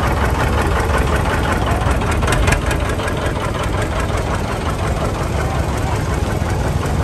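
John Deere 720 tractor's two-cylinder engine running past at a low, even beat.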